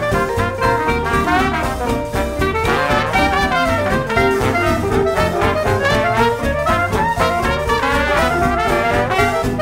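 Background jazz music led by brass horns, playing steadily throughout.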